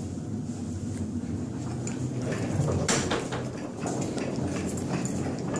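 Wheeled metal tray rack rolling over a hard floor: a steady low rumble from the casters with constant rattling of the metal frame, and a sharper clatter about three seconds in.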